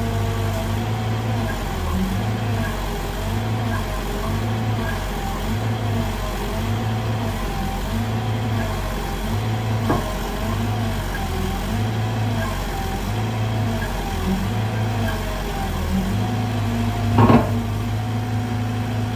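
Sumitomo SH120 A1 excavator's diesel engine running under load, its note pulsing regularly about once a second as the machine strains to climb out of the pit without budging. A single sharp metallic knock sounds near the end.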